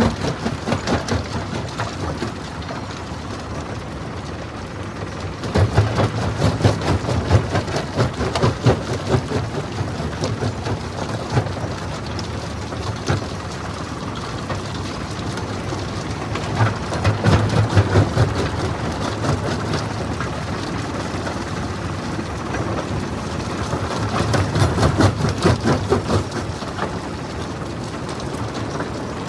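Jaw rock crusher breaking stone: a steady run of dense cracking and crunching over a low mechanical rumble. It swells into louder, deeper crunching bouts three times, about six, seventeen and twenty-four seconds in.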